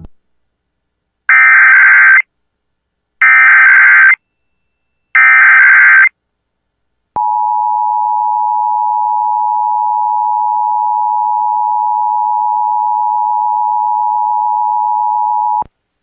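Emergency Alert System activation: three one-second bursts of the SAME digital header, a raspy data warble. Then the steady two-tone attention signal sounds for about eight seconds and cuts off abruptly, announcing a Required Weekly Test.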